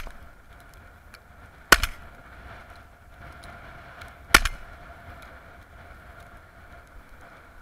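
Shotgun fired twice, two sharp shots about two and a half seconds apart, the first about two seconds in, with the tail of an earlier shot at the very start.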